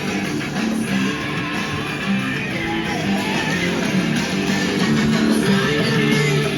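Music with guitar, strummed and plucked, playing steadily.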